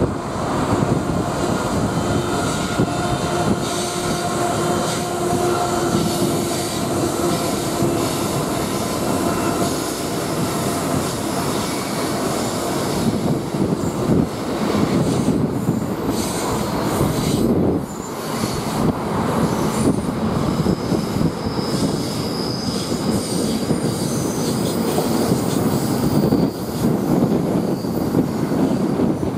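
Long diesel-hauled freight train of loaded steel-coil wagons rolling past, with steady rumbling wheel and wagon noise; the trailing locomotives pass at the start, and thin high wheel squeals come and go in the second half.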